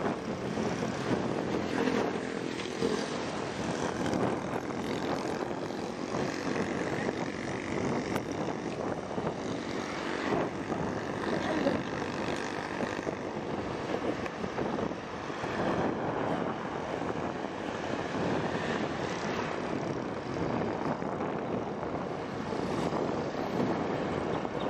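Steady small-engine drone with wind rushing past, as of a motorcycle being ridden along at an even speed.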